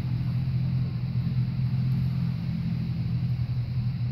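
An engine or motor running steadily with a low, even hum.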